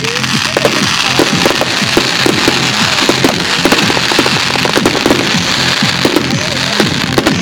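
Fireworks display with many shells bursting at once: a dense, continuous crackling with rapid overlapping pops.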